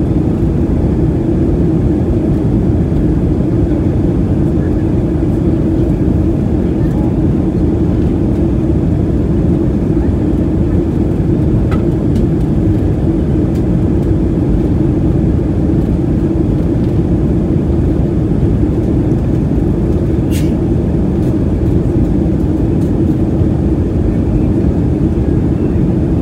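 Steady cabin noise of a Boeing 737-700 in flight: the drone of its CFM56 engines and the rush of airflow, heard inside the cabin by the window, with a steady hum just above 300 Hz. A single sharp click about twenty seconds in.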